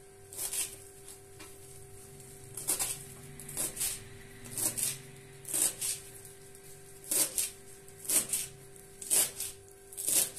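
Kitchen knife finely chopping fresh parsley on a plastic cutting board: short crisp strokes in groups of two or three, about once a second.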